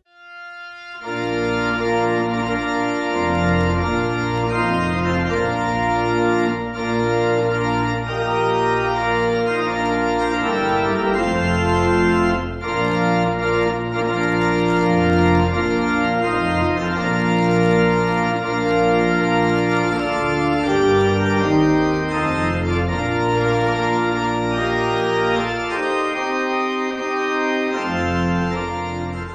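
Organ music playing held chords that change every second or so, starting about a second in after a brief gap.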